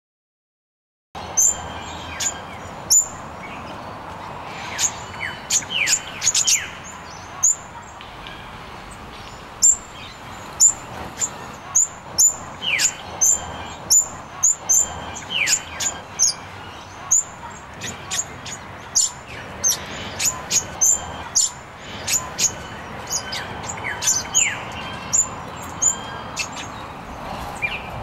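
Double-eyed fig parrot calling: a rapid run of short, sharp, high-pitched chirps, with a few falling whistles mixed in. The calls begin about a second in.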